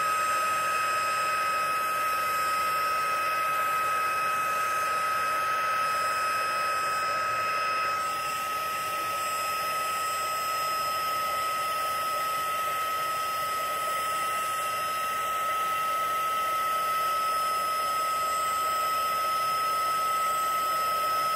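Handheld heat gun running steadily, a fan hiss with a high, steady motor whine, blowing hot air over freshly poured resin to bring up and pop bubbles. It gets slightly quieter about eight seconds in.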